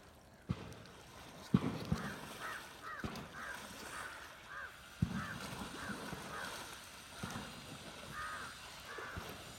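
Crows cawing over and over, about two short calls a second, with a few sharp clicks and knocks from a microSD card and its SD adapter being handled close by.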